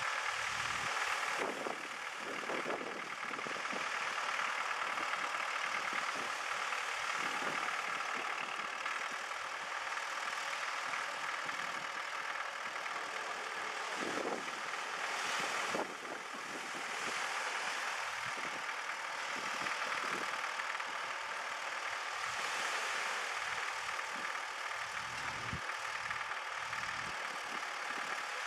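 A farm tractor's diesel engine idling steadily, heard from a distance.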